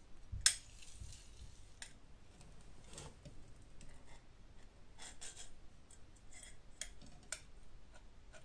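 Sharp clicks and light metallic taps of a large digital caliper being handled and set against a chrome headlight rim to measure it. The loudest click comes about half a second in, followed by a scattering of smaller ones.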